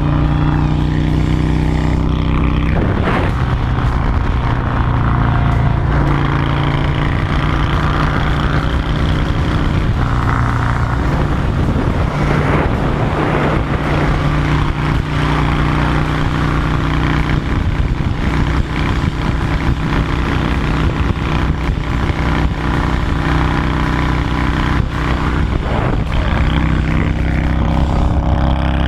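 Honda Shadow 750 V-twin with a loud modified exhaust ending in a fishtail tip, running under way. The engine note holds steady and shifts in pitch a few times as the throttle changes.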